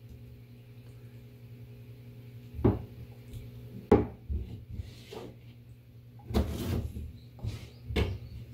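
Kitchen knife knocking down through tofu and Korean zucchini onto a plastic cutting board: a string of sharp, irregular chopping knocks, the loudest about four seconds in, over a steady low hum.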